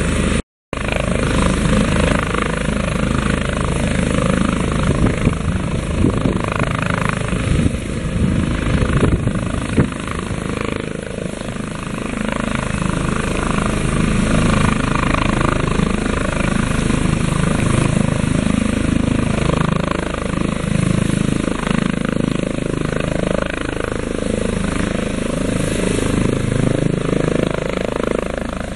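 Airbus H145M helicopter running, its rotor and turbine noise continuous and loud, cutting out for a split second about half a second in.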